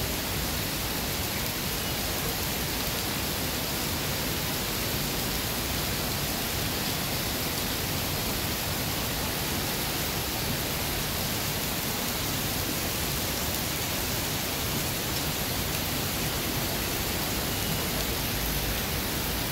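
Heavy rain falling on wet paving, a steady even hiss.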